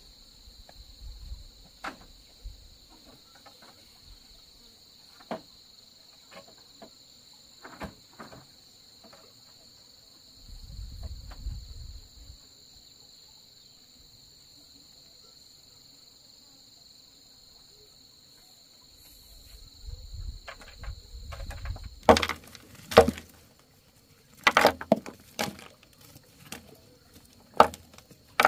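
Insects droning steadily in high tones, with scattered knocks and clatters of a bamboo pole being handled. Several sharp, louder knocks come in the last third.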